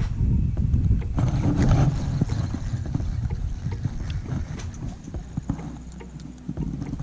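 Wind buffeting the microphone as a fluctuating low rumble, with scattered small clicks and knocks of handling over it.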